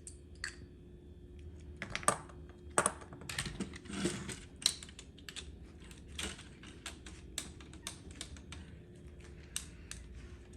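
Hard plastic parts of a Transformers toy clicking and snapping as they are popped apart by hand: a run of irregular sharp clicks, the loudest between about two and five seconds in.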